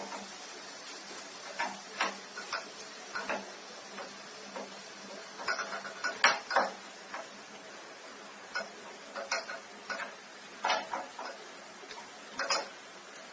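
Irregular light clicks and knocks, a dozen or so spread unevenly, from tools and metal parts being handled while an air conditioner's four-way reversing valve is unsoldered.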